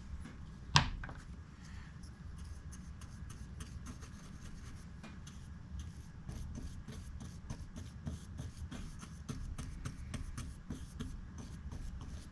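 Light handling noise of small metal pocket-knife parts being worked and greased by hand: one sharp click about a second in, then many small ticks and rubbing that come thicker toward the end.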